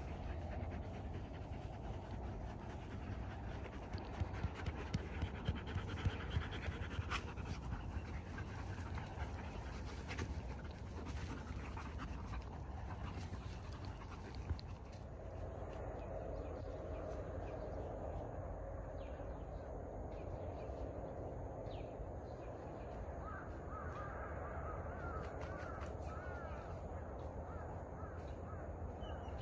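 Wolfdogs play-fighting, panting and giving short vocal calls, with a run of louder sharp sounds about four to seven seconds in.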